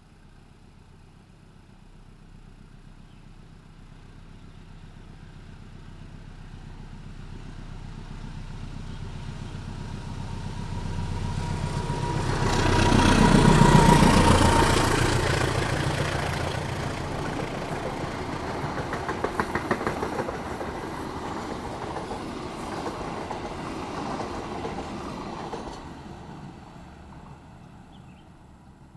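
A diesel train passing: the locomotive's engine grows steadily louder and goes by about halfway through. The carriages follow with the wheels clacking rhythmically over the rail joints, and the sound fades away near the end.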